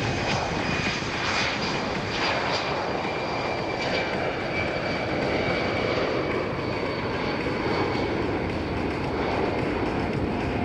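Boeing C-17 Globemaster III's four turbofan engines at takeoff power on a maximum-effort takeoff and climb: a steady jet rush with a thin high whine that fades out near the end.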